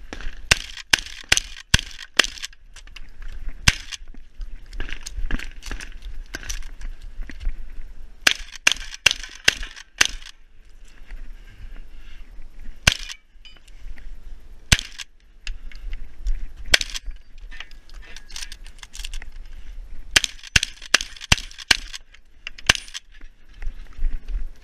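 Shotgun fired at close range by the shooter, in quick strings of shots a fraction of a second apart broken by pauses of one to several seconds, as targets are engaged through an IPSC shotgun stage.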